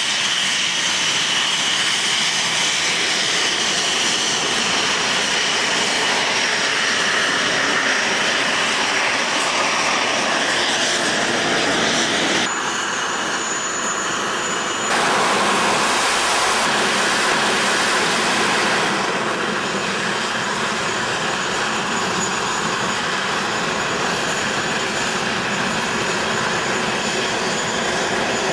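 Twin Rolls-Royce Avon turbojets of an English Electric Lightning F.6 running at low taxi power: a steady jet rush with a thin high whine. The level drops suddenly about twelve seconds in, comes back louder and harsher a few seconds later, then settles again.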